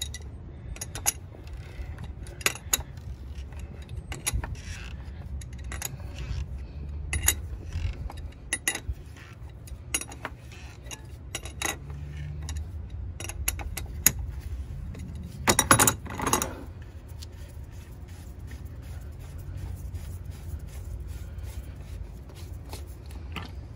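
Adjustable wrench clinking and scraping on a 25 mm oil filter housing cap as it is worked loose. It makes a run of sharp irregular clicks, with a louder cluster about two-thirds of the way through.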